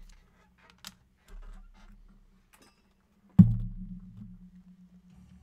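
Scattered light clicks of a sealed trading-card hobby box being handled and pulled from a cardboard case, then one sharp, loud knock about three and a half seconds in as the box is set down on the desk.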